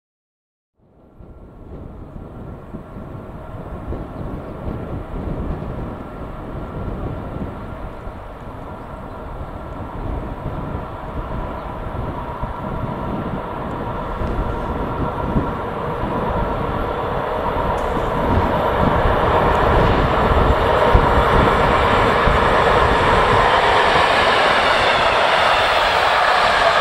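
East German V100-class diesel-hydraulic locomotive approaching with a train, its engine rumble growing steadily louder. Near the end its vintage passenger coaches roll past close by with wheel and rail noise.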